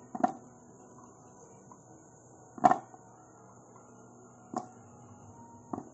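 Ingredients (garlic cloves) dropped by hand into a clear plastic food processor bowl: four short knocks against the plastic, the loudest about two and a half seconds in.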